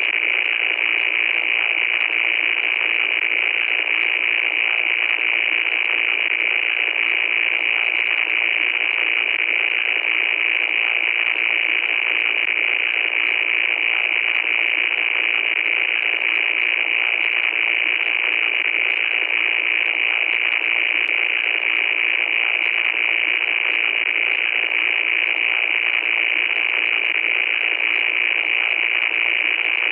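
Loud, unbroken static hiss with no deep bass, brightest in its upper range, with faint crackling ticks scattered through it.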